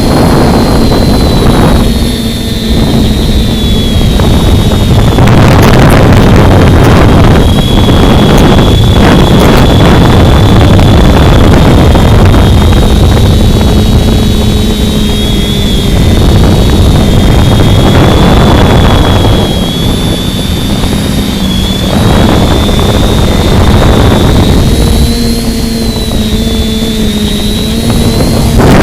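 Electric motor and propeller whine of a small radio-controlled aircraft, its pitch wavering up and down with throttle, under heavy wind buffeting on the microphone that rises and falls in gusts.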